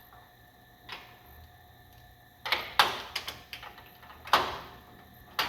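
A series of sharp metal clinks and knocks from hand tools and parts being handled while a lock nut is fitted to a carburetor throttle linkage: a single click about a second in, a quick run of clinks around the middle, then two more knocks near the end.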